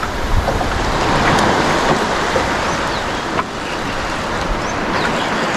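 Steady rushing noise of waves and wind, with a few light clicks.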